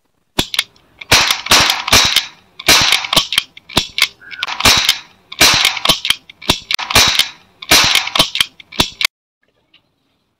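Toy revolver cap gun firing a roll of paper caps: many sharp cracks, often in quick runs of two or three, for about nine seconds, then it stops.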